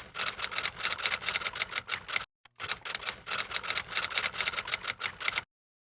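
Rapid clatter of typewriter-style keystrokes, about nine a second, in two runs with a brief break about two seconds in. It stops about half a second before the end.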